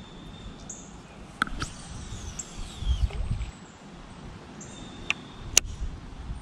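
Uneven low rumble of wind buffeting the microphone, with a few sharp clicks from a baitcasting reel being handled, the loudest near the end, and a faint falling whistle in the middle.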